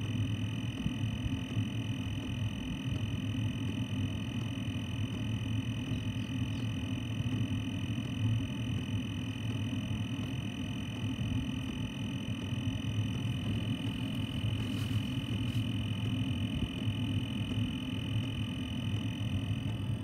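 Steady low buzzing hum with a constant high whine above it, from a 5 kW Chinese diesel air heater running on a diesel and cooking-oil mix while an exhaust gas analyser samples its exhaust.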